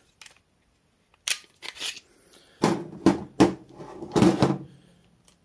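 Handling noise from field-stripped pistol parts: about half a dozen sharp clicks and clacks of slide, frame and barrel knocking together and against the tabletop, starting about a second in.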